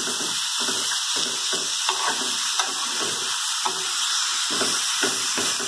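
Diced pork, corn and vegetables sizzling in oil in an aluminium frying pan on a gas burner, with a steady hiss, while a metal spoon stirs and scrapes through them in irregular strokes.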